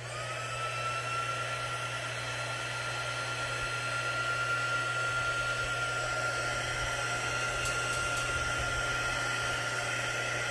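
Embossing heat tool switched on with a click and running steadily: blowing air with a whine that rises briefly as it spins up and then holds one pitch.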